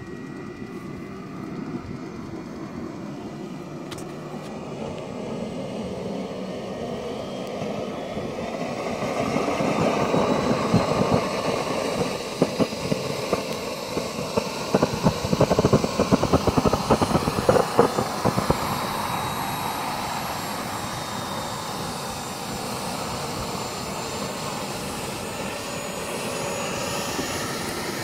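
Turbine-powered scale model helicopter (Vario EC-145) running up on the ground: a thin turbine whine rises slowly in pitch while the spinning rotor blades add a rapid fluttering beat that swells about nine seconds in, peaks, then settles into a steadier run after about nineteen seconds.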